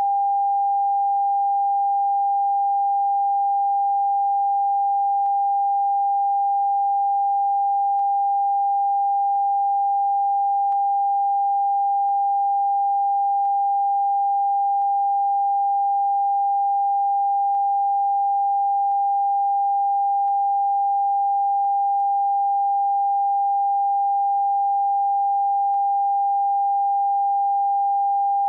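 Television test-card tone: a single steady sine-wave beep held unbroken at one pitch, the off-air signal that broadcasting has ended for the day.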